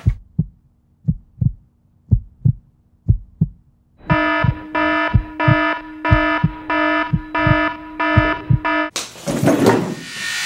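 Heartbeat sound effect: a double thump about once a second over a faint hum. About four seconds in, a pulsing alarm-like electronic tone joins the beats, and near the end a loud rushing noise cuts in.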